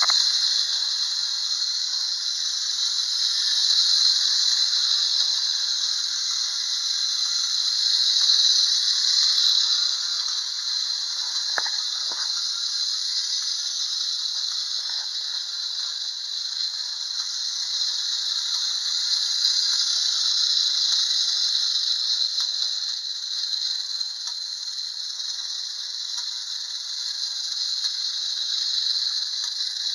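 Clockwork spring motor of a Schylling tin wind-up Lionel handcar toy running, a steady high-pitched mechanical whirr as it drives the car around a tin oval track; it starts suddenly on release and swells and fades a little as the car goes around.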